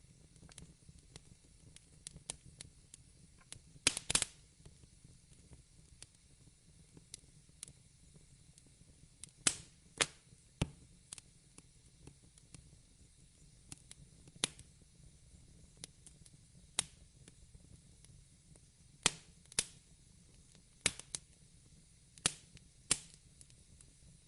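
Wood fire in a fireplace crackling: irregular sharp pops and snaps over a faint low hiss, with a quick cluster of louder pops about four seconds in.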